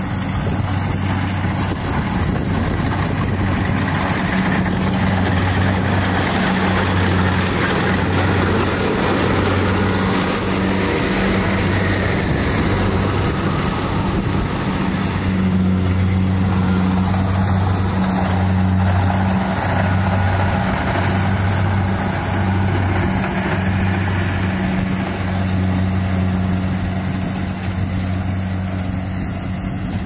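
Kubota DC-70 rice combine harvester's diesel engine running steadily under load while it cuts and threshes rice. A low drone swells and fades about once a second, over a broad rushing noise.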